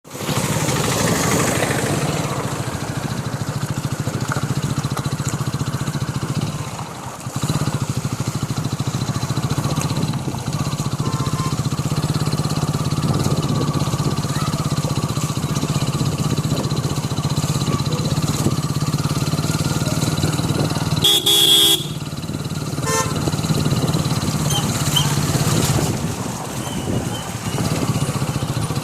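Motorcycle engine running steadily while riding. A vehicle horn honks for about a second about three-quarters of the way through, followed shortly by a short beep.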